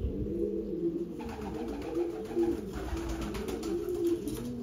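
Male domestic sport pigeon (pica antigua) cooing over and over in a steady run of low, rolling coos, as it courts a female pigeon. A patch of hissing noise runs over the calls for a couple of seconds partway through.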